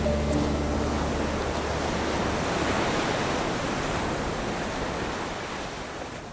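Sea surf washing onto a beach, a steady rush of waves that fades out toward the end.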